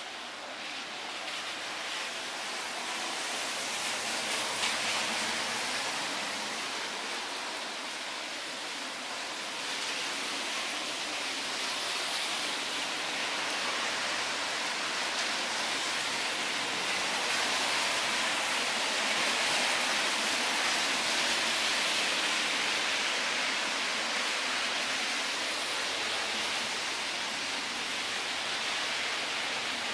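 Steady hiss of rushing water, swelling slightly and easing back over the half minute.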